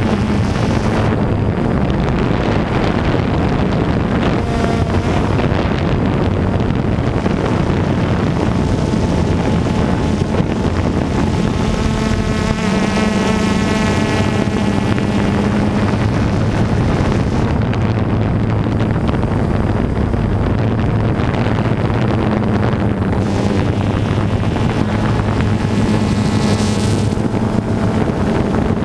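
DJI Phantom 2 quadcopter's propellers and motors humming steadily, picked up by its own onboard camera with wind on the microphone; the hum's pitch shifts up and down now and then as the drone manoeuvres.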